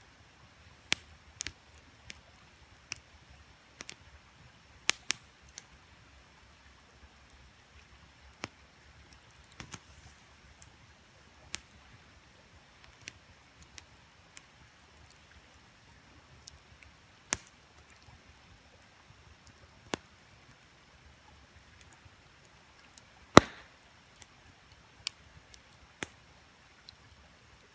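Wood campfire crackling: irregular sharp pops and snaps, a few a second at times and sparse at others, with one loud pop about three-quarters of the way through, over a faint steady hiss.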